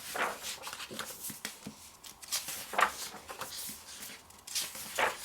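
Magazine pages being turned by hand: several brief paper swishes and rustles, the loudest about three seconds in and near the end.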